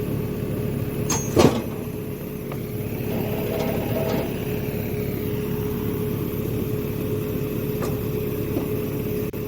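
Excavator's diesel engine running steadily with a constant whine, and one sharp metallic knock about a second and a half in.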